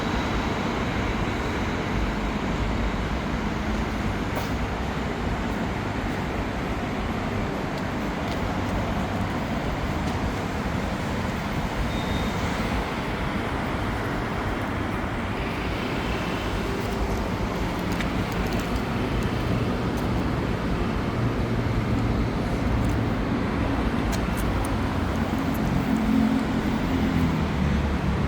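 Steady vehicle and road noise, an even rushing hum with a low drone that grows a little louder near the end.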